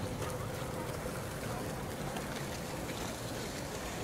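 Steady outdoor background noise with faint, indistinct voices in the distance.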